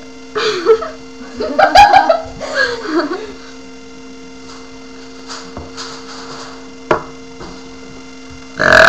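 Steady electrical hum, with a few seconds of short voice sounds whose pitch bends, about a second in, and a single sharp click about seven seconds in.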